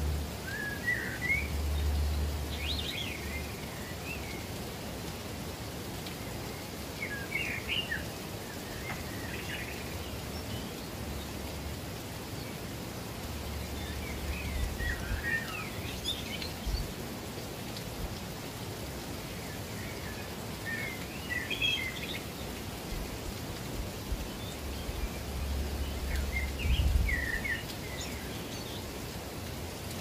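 Steady rush of water, as from a waterfall or rain, with a songbird singing short phrases every five or six seconds. A low rumble comes and goes underneath.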